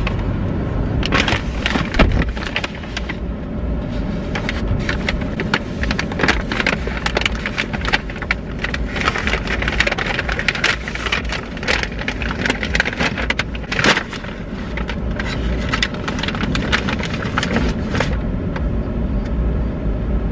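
Crinkling and rustling of a paper shopping bag with assorted clicks and knocks of someone settling into a car seat, over a steady low car rumble; the handling noises stop near the end, leaving only the rumble.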